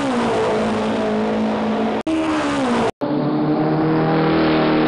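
Car engine sound effect dubbed over the toy car, running loud with its pitch dropping twice as if changing gear, cut off for an instant about two and three seconds in where the clips are spliced.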